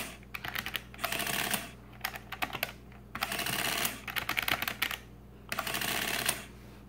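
Sharp EL-1750V printing adding machine in use: clicks of its number keys being pressed, each round of entries followed by a short, fast run of the printer printing a line, three times over. The printer is fairly quiet.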